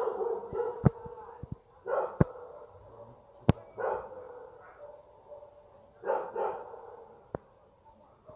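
Distant gunshots, single sharp cracks a second or more apart, mixed with dogs barking in short bursts between them.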